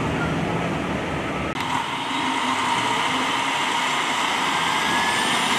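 Steady hum of idling emergency vehicles. A low rumble gives way abruptly, about one and a half seconds in, to a steadier whirring hum with a faint high whine.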